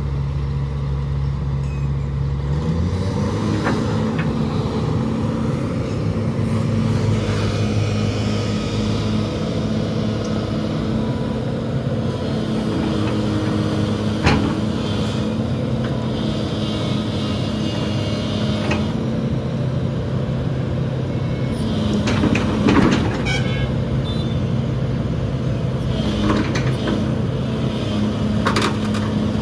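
SANY crawler excavator's diesel engine running, throttled up a couple of seconds in and held at raised revs as the machine tracks up onto a flatbed truck. Several sharp knocks and clanks come in the second half as the steel tracks meet the truck's deck.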